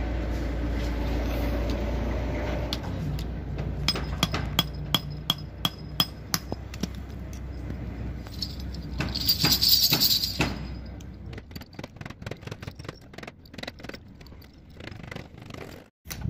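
Small metal bells on a truck's hanging chain fringe jingling and clinking, with a burst of jingling about halfway through, then scattered metallic clicks of pliers working the chain links. A steady low hum underlies the first few seconds.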